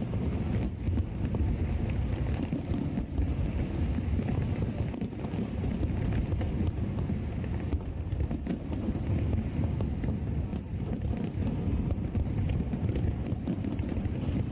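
Wind rumbling steadily on the microphone, with faint scattered crackles and pops.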